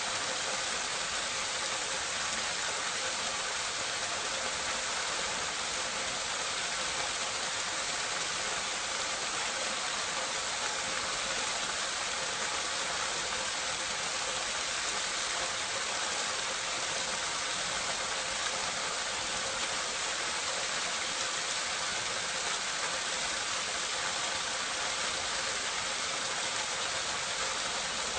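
Water pouring steadily through a drain or drainpipe, recorded close up: an even, unbroken rushing hiss.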